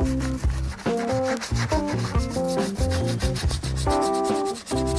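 Rotary abrasive bristle brush scrubbing the wet metal swivel base of a vise: a steady, fast rasping rub. Background music with held keyboard notes plays over it.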